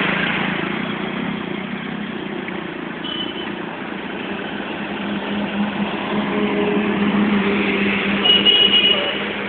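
Street traffic: a motor vehicle's engine hums steadily over a noisy wash and grows louder in the second half. A short high tone sounds about three seconds in and again near the end.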